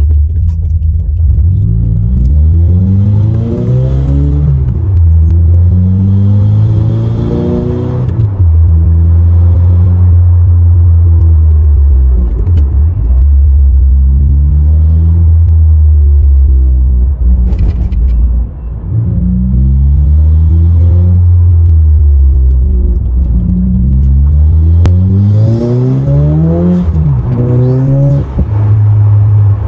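Turbocharged 2015 Subaru WRX flat-four with an aftermarket charge pipe, cold air intake, headers, J-pipe and cat-back exhaust, accelerating through the gears, heard from inside the cabin. The engine note climbs in pitch on each pull and drops back at the shifts, with steadier cruising stretches in between.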